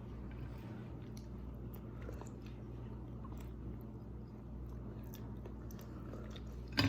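Eating at a dinner table: faint chewing and small clicks over a steady low hum, with one sharp knock near the end.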